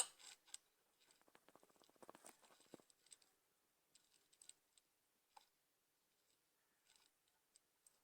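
A girl's single sharp hiccup right at the start, then faint scattered clicks and soft rustling.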